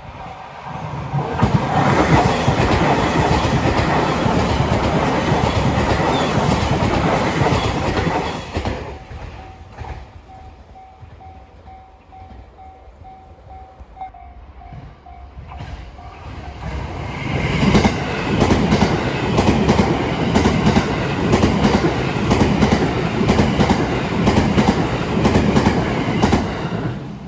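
Train wheels passing over a level crossing and its rail joints: loud for about seven seconds, then easing off while the crossing's warning bell keeps ringing in a steady pulsed tone. About seventeen seconds in the train noise swells again, with a rapid run of clacks from wheels striking the rail joints for about ten seconds.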